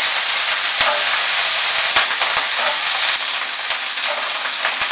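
Cut spring onion stalks and flat beans sizzling steadily in hot mustard oil in a wok as more pieces are dropped in, with a few sharp clicks.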